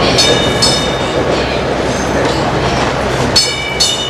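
PCC streetcar rolling over junction trackwork with a steady rumble, its gong sounding in quick double dings twice: once near the start and again about three and a half seconds in, a warning to people crossing the tracks.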